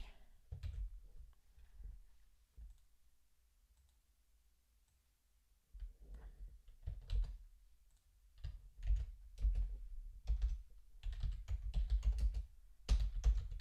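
Typing on a computer keyboard: a few scattered keystrokes, a lull of a few seconds, then a steady run of keystrokes from about halfway through.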